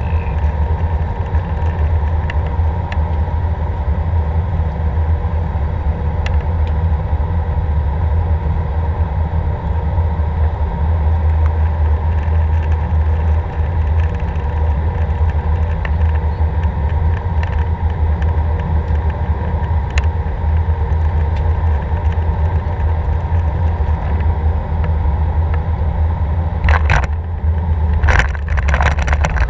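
Airbus A319 cabin on final approach: a steady low rumble of engines and rushing air, with a faint steady whine. Near the end a few sudden thuds and rattles come as the wheels touch down on the runway.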